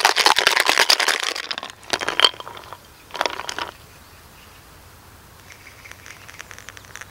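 Ice cubes rattling hard in a cocktail shaker for under two seconds, then two shorter rattles. Near the end comes a faint, thin trickle of shaken espresso poured over ice into a glass.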